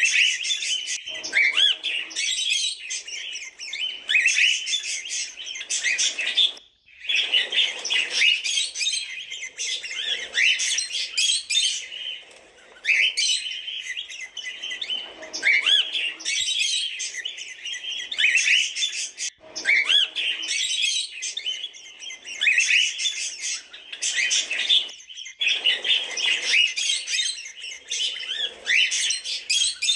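A flock of cockatiels chirping and chattering continuously, with a few brief breaks.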